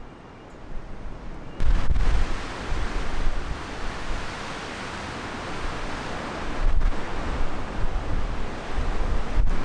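Storm wind gusting across the microphone: a rushing hiss with buffeting low rumbles. It gets suddenly louder about a second and a half in.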